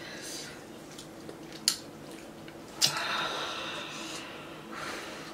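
Quiet eating sounds at a table: two sharp clinks of forks on ceramic bowls, and hissing breaths, the longest a little after the second clink, as the diners cope with the heat of very spicy noodles.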